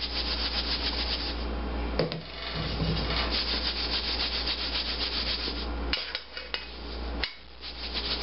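Steak being shaken in flour inside a stainless steel mixing bowl: a fast, rhythmic swishing and rubbing, with short breaks about two seconds in and again around six to seven seconds.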